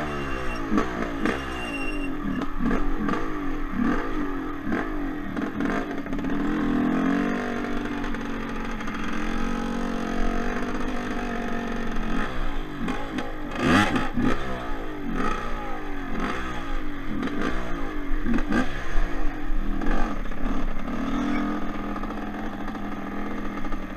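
Yamaha Blaster's single-cylinder two-stroke engine being ridden hard, its pitch climbing and dropping again and again as the throttle is opened and rolled off. A sharp knock about fourteen seconds in.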